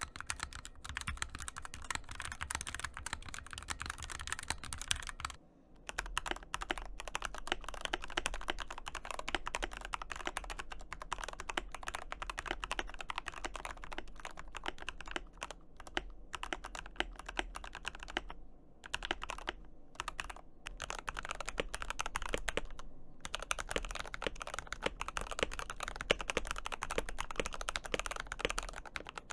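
Fast typing on a mechanical keyboard: a dense run of key clacks, broken by a brief gap about five seconds in and a few short dropouts later on.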